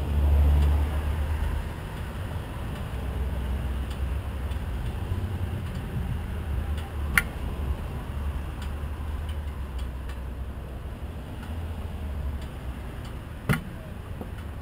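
A motorcycle engine idling with a steady low rumble, loudest for the first second or so. Two sharp clicks, about 7 and 13.5 seconds in, and cars pass in the street alongside.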